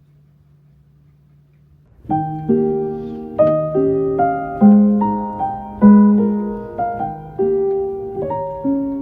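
A faint low hum, then about two seconds in, background piano music starts: gentle struck notes and chords, each ringing and fading before the next.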